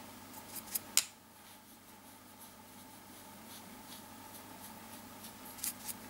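Faint soft strokes of a powder brush sweeping over the cheek. A few short, sharp clicks come about a second in and two more near the end.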